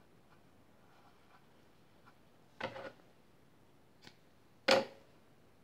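Scissors cutting the yarn at the end of a crochet row: a short handling clatter about halfway through, then one sharp snip near the end.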